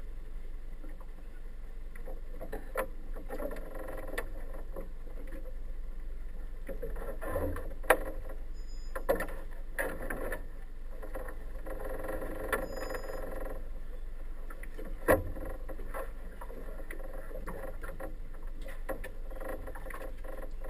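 Steady low hum aboard a docked boat, with a few sharp knocks and thumps and faint muffled voices at times.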